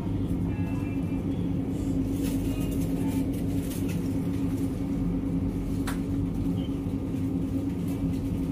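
Steady low hum of refrigerated display freezers, holding a few fixed low pitches without change. A single brief click about six seconds in.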